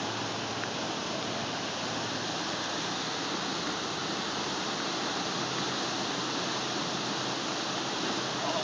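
Floodwater rushing past in a steady, unbroken roar of flowing water.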